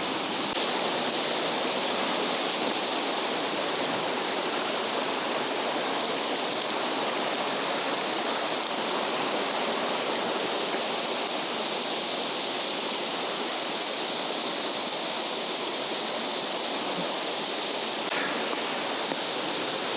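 Fast-flowing water rushing steadily and without a break.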